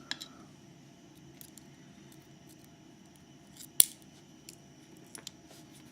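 A few small metallic clicks and ticks, with one sharp click about four seconds in, as tiny brass lock pins and a handling tool are picked up and set down on the bench.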